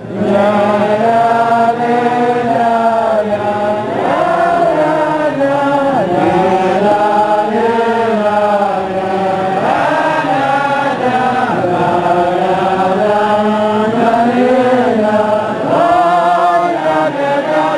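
Large crowd of Hasidic men singing a melody together, loud and sustained, in rising and falling phrases.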